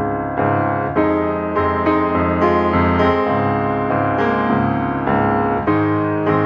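Background music: a piano-led instrumental with chords struck every half second or so.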